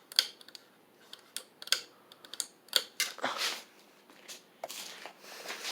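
Irregular clicks and taps over a 42-inch Harbor Breeze Vector Elite ceiling fan running at medium speed.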